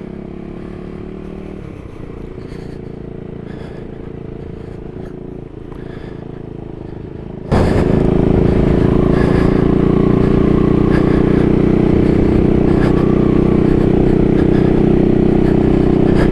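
Husqvarna Svartpilen 401's single-cylinder engine running steadily at a moderate level, then about halfway through jumping abruptly to a much louder, steady run.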